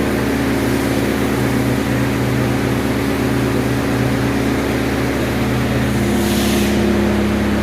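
Mortar-spraying machinery running steadily with a constant engine-like hum, a brief hiss about six seconds in.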